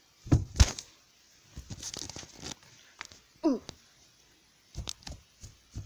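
Stuffed animal toys being handled and knocked about close to the microphone: soft thumps, two strong ones near the start, and fabric rustling. A short vocal cry falling in pitch comes about three and a half seconds in.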